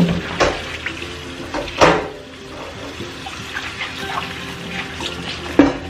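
Kitchen faucet running onto hands and vegetables in a stainless steel bowl as tomatoes are rubbed clean under the stream, with a few louder splashes, the biggest about two seconds in and another near the end.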